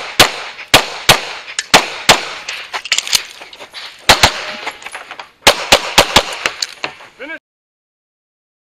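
Rapid pistol shots fired from a red-dot-sighted handgun, about fifteen in all, many in quick pairs with short pauses between strings. The firing stops abruptly about seven seconds in.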